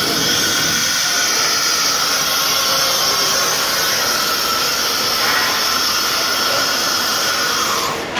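Spindle of an Alu Ranger vertical panel machine milling a solid 3 mm aluminium sheet: a loud, steady high whine with hiss, which drops away about eight seconds in.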